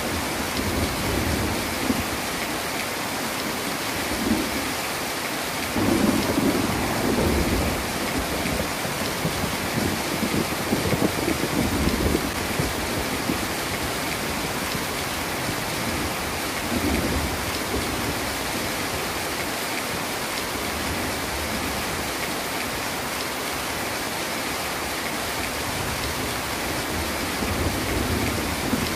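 Heavy rain falling steadily, with thunder rolling in low rumbles that swell and fade several times, the strongest about six and eleven seconds in.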